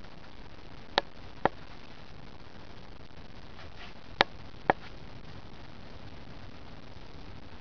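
Four short, sharp clicks in two pairs, each pair about half a second apart and the pairs about three seconds apart, over a steady background hiss.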